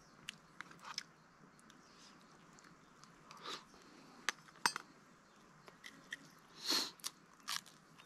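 A person chewing and crunching food, with scattered short crunches and clicks and a few louder crunches in the second half.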